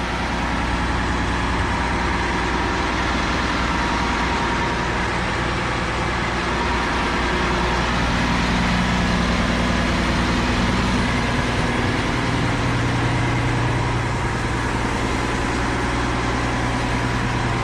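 The motorhome's rear-mounted 450-horsepower Cummins diesel engine running steadily on high idle, a continuous low hum.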